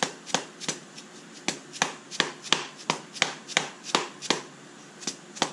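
Soft-faced mallet tapping the IMS bearing cover into the engine case of a Porsche Boxster S: a steady run of sharp taps, about three a second, with a short pause near the end. The taps are easing the slightly misaligned cover into its seat.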